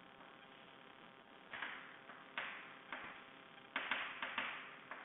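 Chalk drawing on a chalkboard: about seven short, sharp chalk strokes and taps, starting about a second and a half in and coming closer together near the end.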